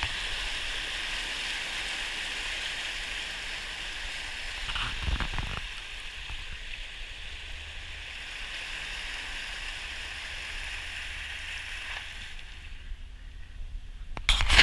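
Fast-moving floodwater rushing and churning in a steady hiss, with a low thump about five seconds in. The rushing cuts off about two seconds before the end, followed by a few sharp knocks.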